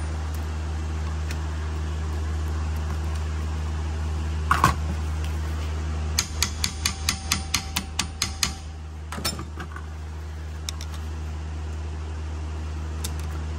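A brake pad being tapped down into its caliper bracket: one knock, then a quick run of about ten light, ringing metal taps, roughly four a second, and a few fainter ones after. A steady low hum runs underneath.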